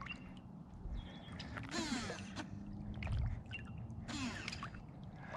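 Legs wading through knee-deep lake water: a sloshing swish about two seconds in and again about four seconds in, with trickling and gurgling water between steps.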